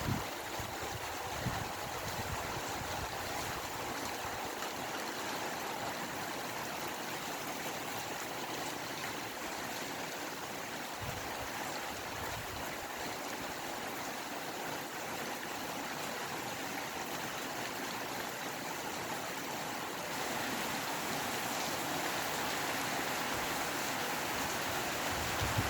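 Steady rain with wind, a continuous even hiss that grows a little louder about twenty seconds in.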